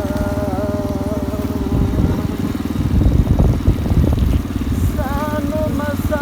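Motorcycle engine running steadily under way, with louder, rougher rumbling in the middle. A voice sings long held notes over it at the start and again near the end.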